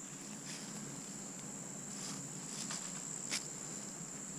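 Crickets singing a steady, continuous high-pitched trill, with a few light clicks of footsteps on the trail.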